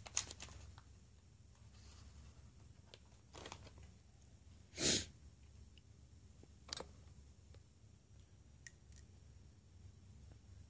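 Faint handling noise: small clicks and crinkles of a plastic parts bag and a metal RC shock body being turned in the fingers. One short, louder burst of noise comes about five seconds in.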